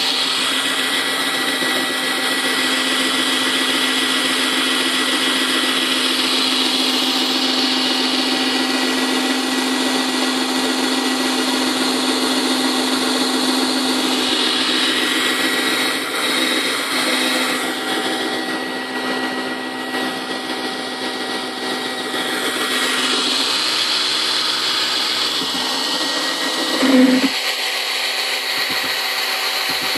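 Old 7.2-volt cordless drill spinning a trolling-motor propeller in the water as a makeshift outboard: a steady electric-motor and gear whine under load. There is a brief louder blip near the end.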